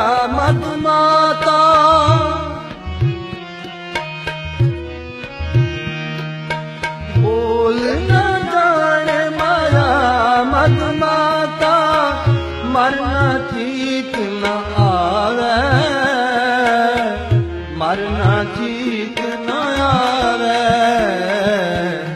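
Music: the instrumental interlude of a Sikh devotional song (shabad), with regular drum beats under a wavering melody line.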